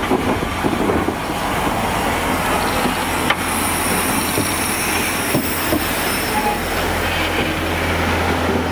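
Saddle-tank steam locomotive and its coaches rolling slowly past at close range, with wheel clicks and faint flange squeal. A steady low hum comes in over the last couple of seconds.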